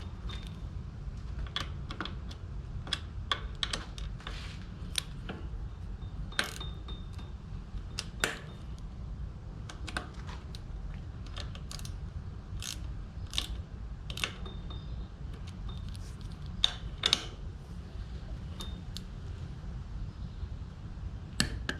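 Ratchet of a torque wrench clicking in short, irregular runs while the crank arm's pinch bolts are tightened a little at a time toward 12 Nm, over a low steady hum.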